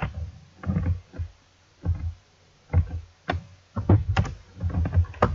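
Irregular keystrokes on a computer keyboard, a few keys at a time with short pauses between them.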